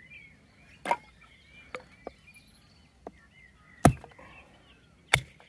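Fiskars X7 hatchet splitting a thin wooden plank into kindling: a series of sharp chops of the blade into the wood, a second or so apart, the loudest just before four seconds in.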